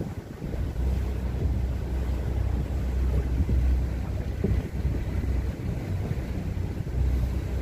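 Motorboat under way, its engine a low steady rumble beneath wind buffeting the microphone.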